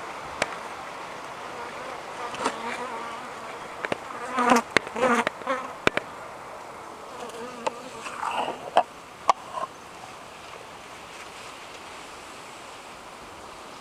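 Honeybee colony humming inside the hive, a steady buzz, with louder wavering buzzes between about four and nine seconds in. Several sharp clicks break in over the first ten seconds.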